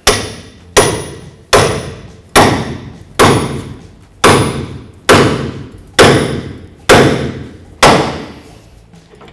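Hammer striking a pickle fork wedged under a tie rod end, about ten sharp metal-on-metal blows a little under a second apart, each ringing briefly. The blows drive the wedge in to break the tie rod end's tapered stud free of the steering arm.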